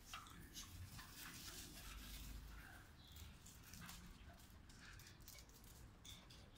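Faint sounds of Scottish terriers at play: scattered scuffles and soft dog noises. Clicks and rustles from a handheld phone camera being carried about are mixed in.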